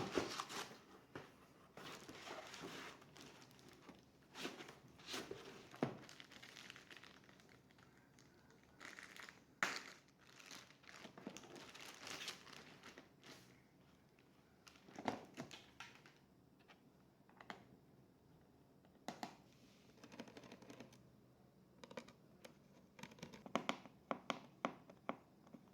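Faint, scattered handling sounds: crinkling and rustling with small clicks and taps, as parts and packaging are handled during a laptop RAM upgrade.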